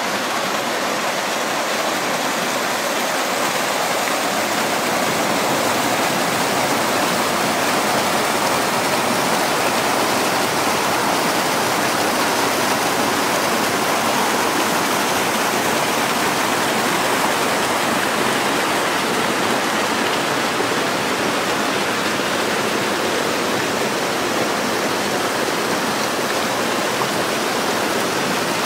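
Rushing water, a steady, loud, even rush with no let-up.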